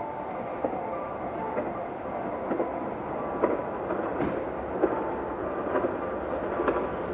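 Nanao Line local electric train approaching along the track: a steady run of wheels on rail with faint tones and scattered sharp clicks.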